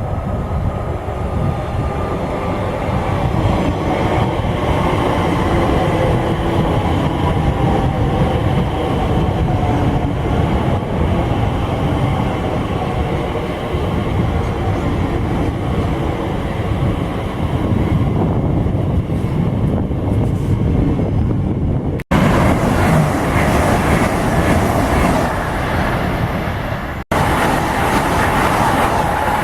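Trains at a station: a train running, with a faint whine that falls slowly in pitch over the first ten seconds or so under a steady rumble. The sound breaks off abruptly twice, and after each break it is a brighter, hissier train noise.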